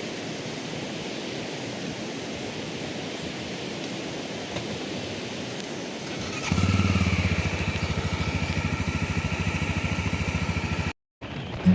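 Steady rush of flowing water, then about two-thirds of the way in a motorcycle engine starts and idles with an even, fast pulsing beat, louder than the water. The sound cuts off abruptly near the end.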